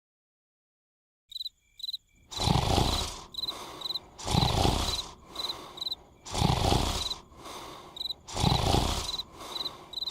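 Exaggerated cartoon snoring: after a second of silence, a loud snore comes about every two seconds, each followed by a softer one. Short, high, cricket-like chirps repeat over it.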